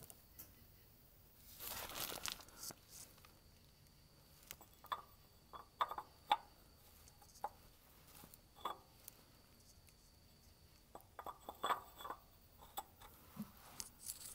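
Faint, scattered clicks and light knocks of a cap-type oil filter wrench on a ratchet being worked onto the oil filter housing, with a short rustle about two seconds in.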